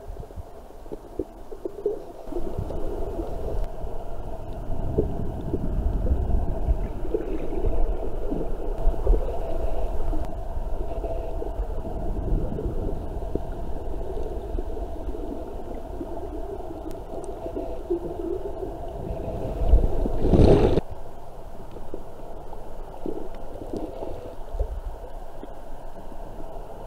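Muffled underwater ambience picked up by a submerged camera: low, uneven rumbling of moving water and surge. About twenty seconds in there is a brief, louder rush of noise.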